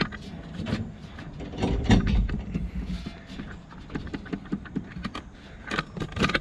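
Homemade truck ladder rack made of steel network-rack rails clanking and rattling as it is shaken by hand to test how sturdy it is, with scattered knocks and a heavier cluster of thumps about two seconds in.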